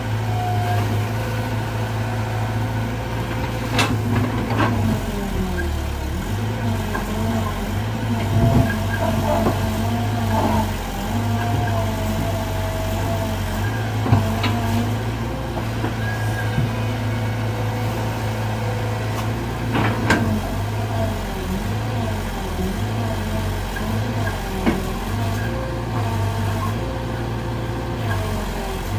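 Sumitomo SH120 A1 excavator's diesel engine running steadily under load, with a wavering whine over it and a few sharp knocks from the machine working, as it struggles to climb out of a pit with what the operator calls a weak hydraulic system.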